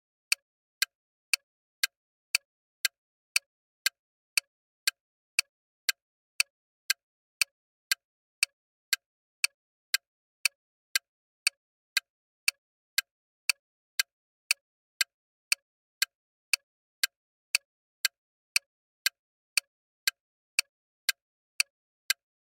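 Bomb timer sound effect: short, sharp ticks evenly spaced at about two a second, with silence between them.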